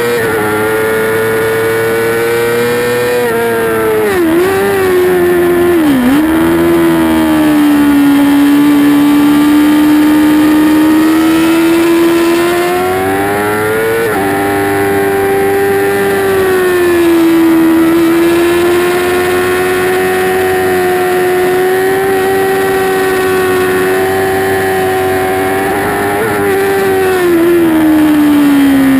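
2008 Yamaha R6's inline-four engine running hard at high revs under race throttle. Its pitch dips sharply twice around four and six seconds as it is shifted down, climbs steadily, drops abruptly about halfway at a gear change, and falls away near the end as it slows.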